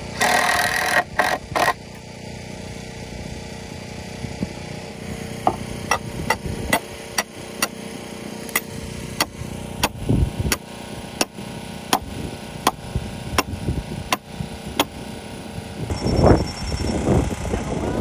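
Sledgehammer driving a stake for wooden concrete forms, a steady run of sharp knocks about two a second for roughly ten seconds. It follows a brief loud rush of noise at the start.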